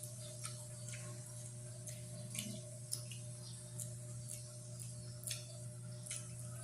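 Close-miked chewing and wet mouth smacks of someone eating pork hock kare-kare: short, irregular clicks several times a second over a steady low electrical hum.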